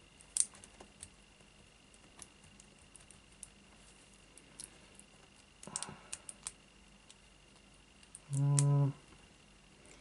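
Comb pick being worked in the keyway of a small brass padlock: scattered faint metallic clicks and ticks, with a denser run of clicks about six seconds in. A short hummed "mm" from the person about eight and a half seconds in.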